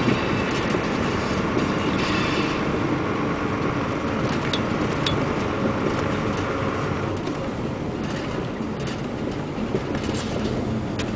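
Heavy truck running, a steady engine and road rumble that eases off slightly about seven seconds in.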